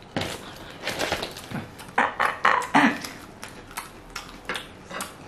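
Crispy fried chicken being handled and bitten: pieces pulled from a cardboard bucket and crunchy bites into the coating, an irregular string of crackles and clicks.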